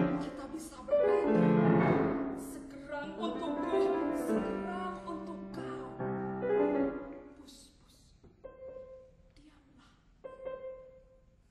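Piano playing full, ringing chords for several seconds, then thinning to a few soft, spaced-out notes as the piece draws to its close.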